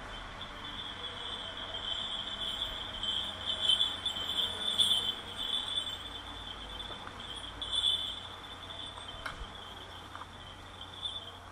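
A chorus of insects chirping in one steady high-pitched band. It swells louder about a third of the way in and again past the middle, then fades toward the end.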